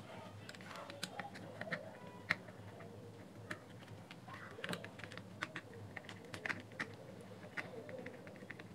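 Faint, irregular light clicks and taps of a small screwdriver against the plastic casing and screws while the battery housing of an opened pocket radio is being unscrewed.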